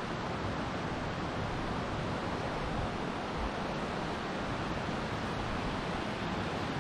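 Steady rush of a fast-flowing mountain river, an even noise with no breaks.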